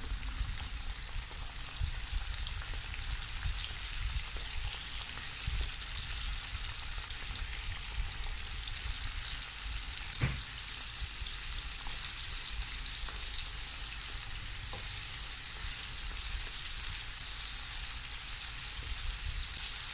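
Flour-coated chicken wings deep-frying in a pot of hot oil: a steady sizzling crackle, with one sharp click about ten seconds in.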